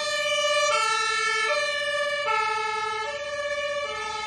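A toy fire truck's electronic siren playing a two-tone hi-lo wail, switching between a low and a high note roughly every three quarters of a second.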